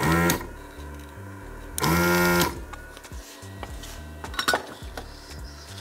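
ZD-8915 desoldering station's vacuum pump buzzing in two short bursts, at the start and again about two seconds in, sucking molten solder off a circuit board's connector pins. A few light clicks follow about four and a half seconds in, over soft background music.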